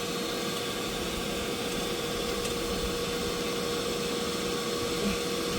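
Shop-Vac wet/dry vacuum running steadily with an even rushing sound and a constant whine. It is pulling suction on the engine's oil fill opening to hold the oil in while the drain bolt is out.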